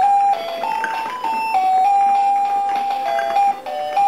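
A simple electronic melody of plain beeping notes, stepping up and down with a long held note in the middle, with music underneath.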